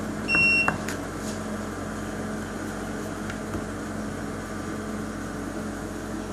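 Keypad beep of a solid-state shortwave diathermy unit about half a second in, as its intensity is stepped up, followed by the machine's steady low electrical hum while it delivers output.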